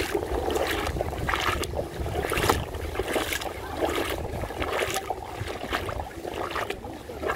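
Legs wading through shallow seawater: a series of swishes and splashes, with a low wind rumble on the microphone.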